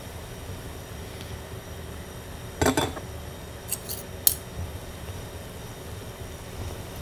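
A metal fork clattering against dishware about two and a half seconds in, then three short sharp clinks as salmon flakes are set on a ceramic plate, over a low steady rumble.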